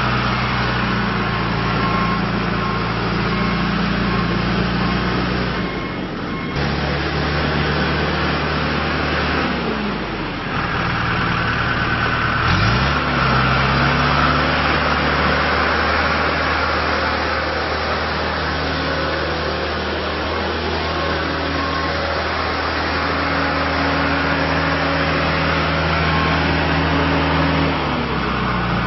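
Diesel engine of a John Deere 310G backhoe loader running, its speed changing several times: it drops about six seconds in, dips and climbs again around ten to thirteen seconds, and drops near the end.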